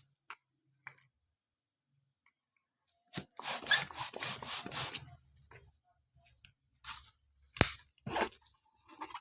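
Plastic balloon packaging being crinkled and torn open: a run of dense rustling over about two seconds, then one sharp snap, the loudest sound, about seven and a half seconds in, followed by a few shorter rustles.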